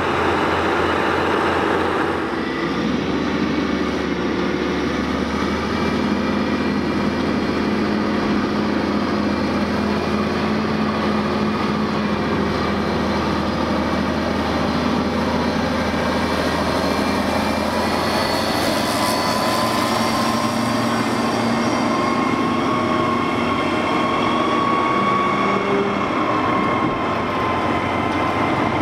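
CAT 637 wheel tractor scrapers working, their diesel engines giving a steady heavy drone with whining tones that shift in pitch as the load changes; the low note changes about two seconds in.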